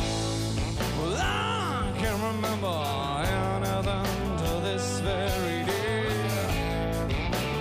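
Live pop-rock band playing: strummed acoustic and electric guitars over bass and drums, with a lead line gliding up and down in pitch about a second in.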